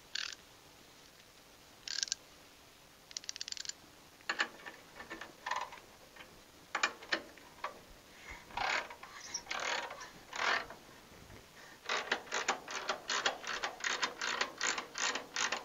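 5/8 ratcheting wrench working a rusted nut on a gas tank mounting: scattered single clicks at first, then a fast, even run of ratchet clicks, about four a second, in the last few seconds as the nut turns.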